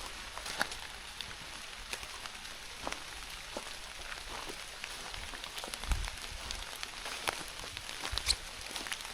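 Rain falling, a steady hiss with many irregular drop ticks. A couple of low thumps come about six and eight seconds in.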